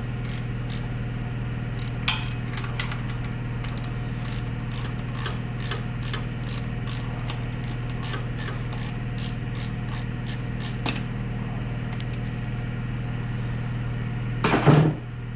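Hand ratchet wrench clicking in a steady run of about two or three clicks a second as a fuel pump mounting bolt on the engine is backed out; the clicking stops about eleven seconds in. Near the end comes a single louder metallic clatter.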